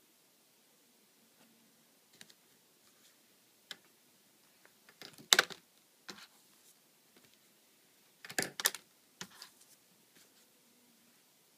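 Scattered light clicks and taps of a pen knocked about on a wooden desk and notebook by a playing kitten and a person's hand, the loudest a sharp clack a little past five seconds and a quick cluster of clacks around eight and a half seconds.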